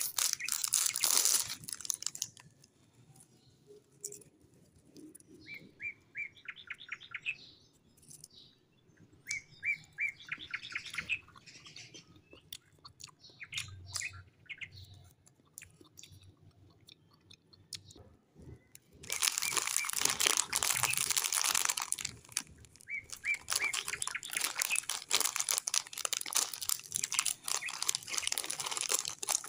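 Plastic snack wrappers crinkle and crackle as hands handle them. There is a short burst at the start and a long stretch over the last third as a wafer packet is pulled open. In the quieter middle, birds chirp in short quick trills.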